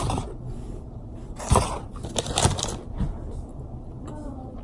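Biting and chewing into a crispy Popeyes fried chicken sandwich, with a few short, sharp crunches, the loudest about a second and a half in and again a second later.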